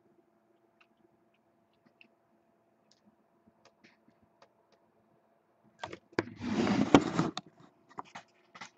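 Trading cards and their packaging being handled: faint small clicks and taps, then about six seconds in a loud rustle of packaging being torn open, lasting about a second and a half, followed by more short crinkles and taps.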